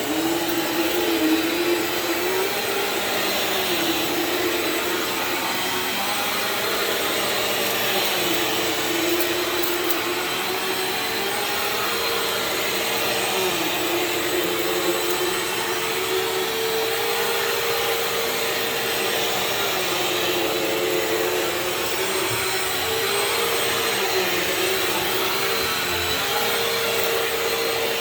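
Bissell CleanView Swivel Pet (2252) bagless upright vacuum running steadily while being pushed over carpet. Its motor hum wavers, dipping slightly and recovering every few seconds as it works back and forth.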